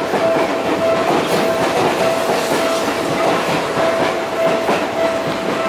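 Seibu 30000 series electric train rolling slowly past the platform as it pulls out. Its wheels clack over the rail joints about once a second, with a steady tone running through the rolling noise.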